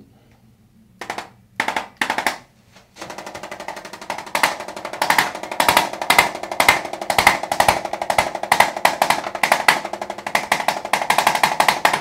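Corded electric chiropractic adjusting instrument firing against the neck and upper back. A few short bursts come first, then a continuous rapid rattle of taps, louder from about four seconds in.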